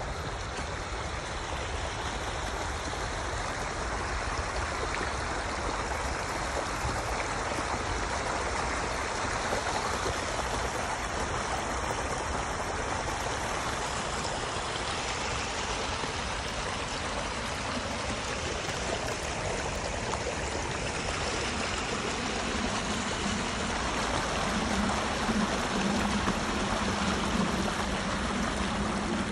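Storm runoff rushing steadily along a shallow channel of flowing rainwater over grass and fallen leaves. A lower-pitched tone joins in over the last several seconds.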